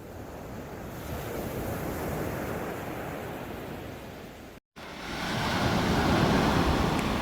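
Sea waves washing onto the shore, with wind on the microphone; the sound swells and ebbs, drops out abruptly about two-thirds of the way through, then returns louder.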